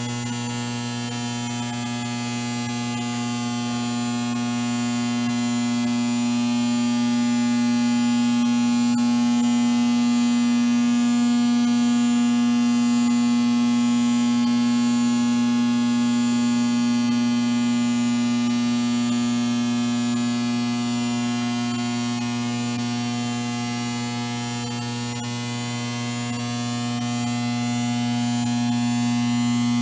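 Steady electrical buzz: a constant low hum with many higher overtones, swelling slightly louder toward the middle, dipping a little near the end, then rising again.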